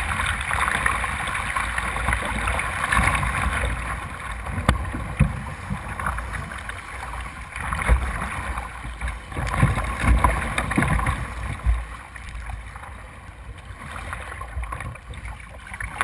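Tidal white water rushing and splashing over the bow of a kayak, with irregular low thuds of waves slapping the hull. It eases off about twelve seconds in as the kayak runs out into calmer water.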